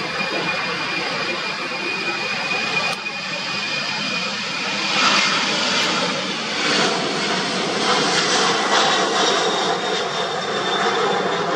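Twin-engine UPS cargo jet at takeoff thrust: a steady high engine whine over jet noise, swelling about halfway through into a louder, crackling rush as the jet rotates and lifts off, then climbs away.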